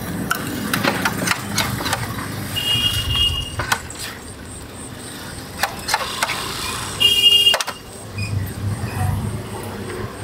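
Street traffic ambience: motor vehicle engines running, with two short high-pitched beeps, about three seconds and seven seconds in, the second one loud, and scattered sharp clicks and taps.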